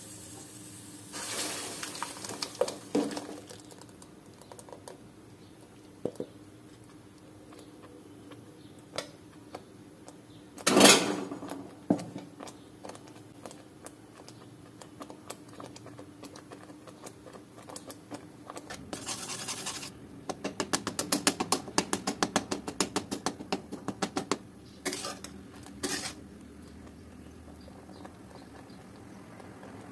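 A metal kadhai and utensil being handled: scattered clinks, one loud thump about eleven seconds in, and a few seconds of rapid scraping at about eight strokes a second from a metal spatula working mango pulp against the pan.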